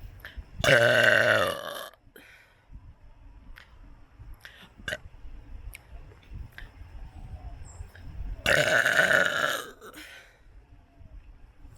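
A person burping twice, each burp long and loud and lasting over a second. The first comes about half a second in and the second about eight and a half seconds in.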